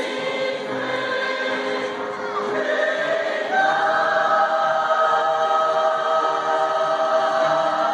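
Church choir singing in parts, settling into a long held chord from about three and a half seconds in.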